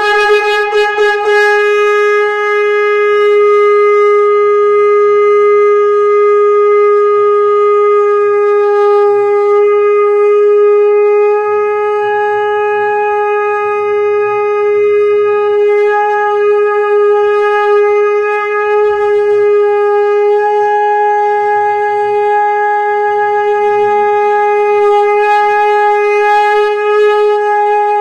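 Conch shell (shankha) blown in one long, unbroken, loud note that holds steady in pitch, wavering only briefly at the start.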